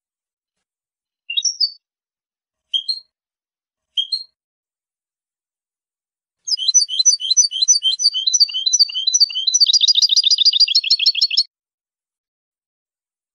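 European goldfinch singing a clean song: three short chirps about a second apart, then a five-second phrase of quick twittering notes that speeds into a rapid trill and stops abruptly.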